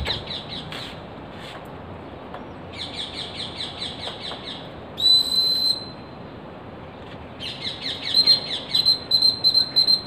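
High whistled calls: bursts of quick, falling chirps, several a second, then a long steady whistle about halfway through. Near the end come more chirps mixed with short whistled notes.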